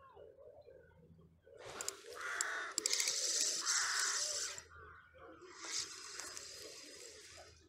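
Spinning reel on a feeder rod being cranked to wind in line, a harsh whirring with clicks. One spell starts about a second and a half in and lasts about three seconds, and a shorter one follows near the end.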